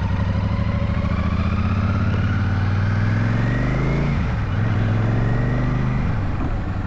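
Royal Enfield Shotgun 650's parallel-twin engine pulling under throttle with rising pitch, a shift about four seconds in, then steady running before easing off near the end.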